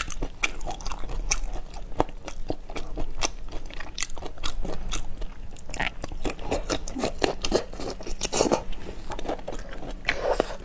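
Close-miked biting and chewing of shell-on seafood coated in chili-oil sauce: dense, irregular crunches and sharp cracks of shell.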